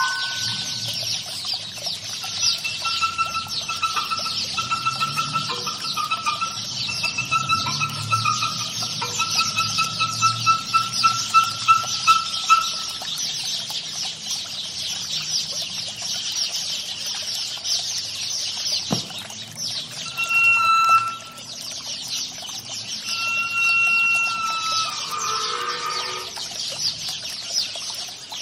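Experimental live-performance soundscape: a dense, steady high crackling texture with held pitched tones coming and going over it. About ten seconds in the tones break into short pulses that come faster, and a single sharp click sounds past the middle.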